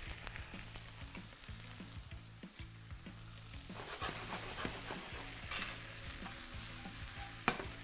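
Halved cherry tomatoes sizzling in hot olive oil in a frying pan, a steady high hiss that starts as they land in the pan. A few light clicks run through it, with one sharper click near the end.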